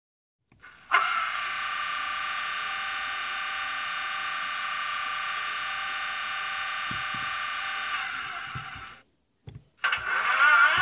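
Sound decoder in an N gauge Class 37 model locomotive (LokSound V4) playing diesel locomotive sounds through its tiny onboard speaker. A steady buzzing tone runs about seven seconds and fades out. After a short gap and a couple of clicks, a louder, wavering sound starts near the end, with its pitch rising.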